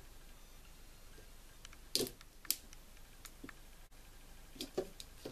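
Scattered small clicks and taps of a kitchen knife and chestnuts against a wooden worktop as the chestnut shells are slit, the two loudest about two seconds in, half a second apart.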